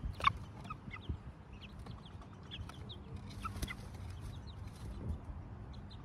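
Domestic hens clucking and making short, soft calls, scattered all through. A sharp tap sounds about a quarter second in, the loudest moment.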